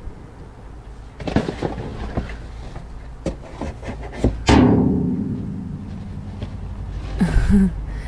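Trash clattering and knocking against the walls of a steel dumpster as it is moved about, then one loud hollow bang on the dumpster's metal body about halfway through that rings out and fades over a couple of seconds.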